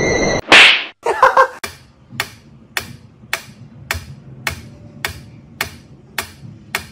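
Mechanical pendulum metronome ticking steadily, a little under two sharp ticks a second. Just before the ticking starts, about half a second in, comes a short loud burst of noise, the loudest sound here.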